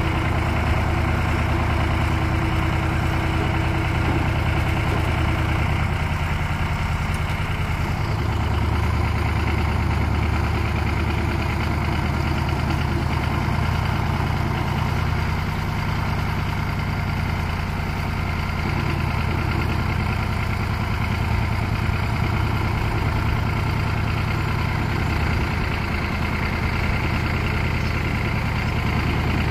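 Tractor diesel engine running steadily while its mounted hydraulic crane lifts a field-railway track panel; the engine note shifts a few times as the hydraulics take load.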